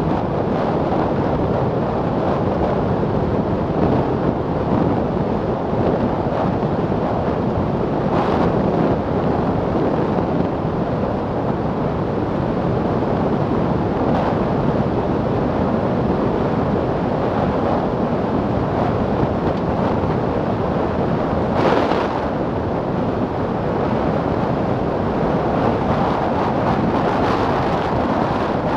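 Steady rush of wind over the microphone, mixed with the tyre noise of a roofless Milan Mk4 velomobile running at about 70 to 80 km/h. There are a couple of brief knocks, one about 8 seconds in and one about 22 seconds in.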